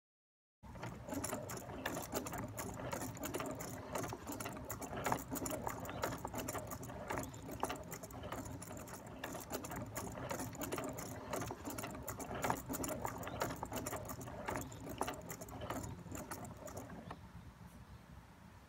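Mechanism of a small carved-wood automaton of a banjo-playing bear and a squirrel running: a busy, steady clatter of many small clicks and knocks, starting about half a second in and growing weaker near the end.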